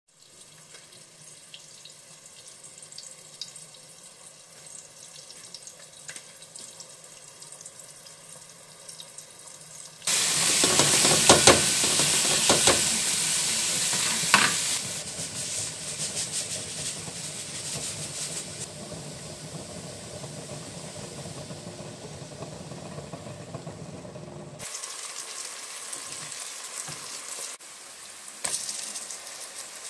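Sliced onions frying in oil in a stainless steel pot and being stirred with a spatula: a sizzle comes in suddenly and loud about a third of the way through, eases off after a few seconds and goes on more quietly. Before it there are only faint handling clicks.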